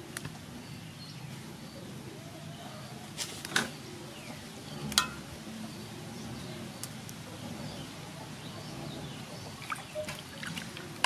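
Water sloshing and dripping in a large aluminium basin as a whole raw chicken is handled and rinsed in it. There are a couple of sharp clicks in the middle, and more splashing near the end as hands go into the water.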